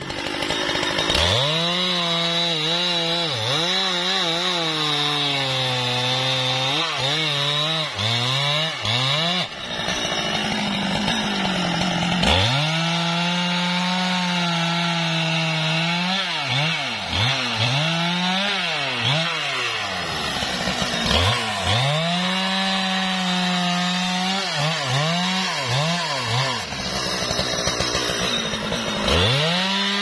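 Husqvarna 395 XP two-stroke chainsaw cutting through trembesi logs. The engine runs at full throttle, and its pitch sags and recovers over and over as the chain bites into the wood and frees again. It eases off for a couple of seconds about a third of the way in, then revs back up.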